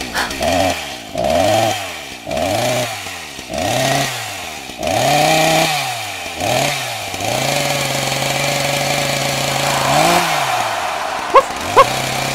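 Chainsaw engine revved over and over, its pitch rising and falling about six times, then running at a steady pitch with one more brief rev. Two short, sharp sounds near the end are the loudest.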